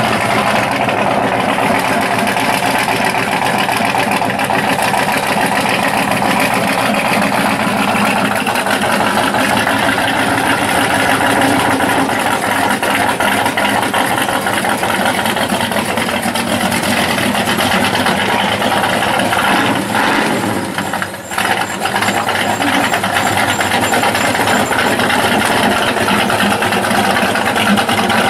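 Pro street Ford Falcon's V8 running loud and steady at low speed as the car rolls slowly, dipping briefly about twenty seconds in.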